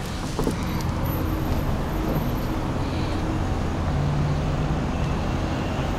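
Road traffic on a busy city street: cars idling and creeping past in a queue, a steady low engine hum. A knock about half a second in as a glass entrance door swings.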